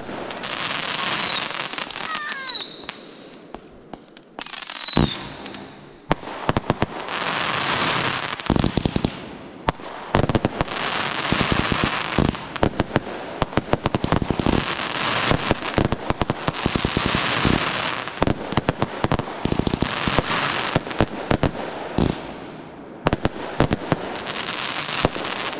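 Consumer fireworks going off: continuous crackling with many sharp pops, and a few short falling whistles in the first five seconds.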